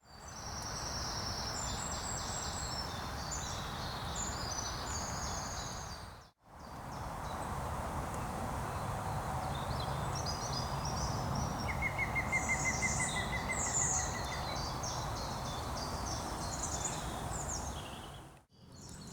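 Songbirds singing in spring woodland: several birds give overlapping high, quick phrases over a steady background hiss, with one bird's fast, evenly repeated trill about two-thirds of the way through. The sound fades out briefly twice.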